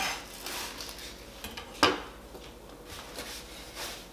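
Kitchen knife knocking on a cutting board and utensils clattering as chopped shallot is moved into a food processor bowl. One sharp knock a little under two seconds in is the loudest, with a few lighter taps around it.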